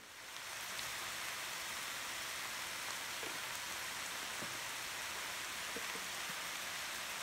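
Seasoned ground beef sizzling steadily in an electric skillet, with a few faint pops.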